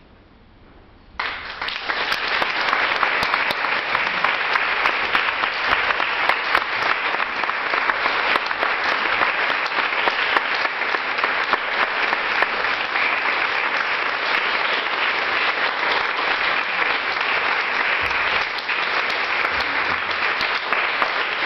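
Audience applauding. It starts suddenly about a second in and goes on steadily.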